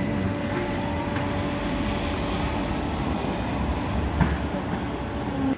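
City tram running on its street rails close by, a steady electric hum over rolling noise and street traffic, with a single knock about four seconds in.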